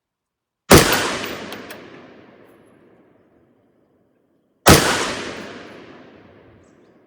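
Two AR-15 rifle shots about four seconds apart. Each is a sharp crack followed by a long echo that fades over about two seconds.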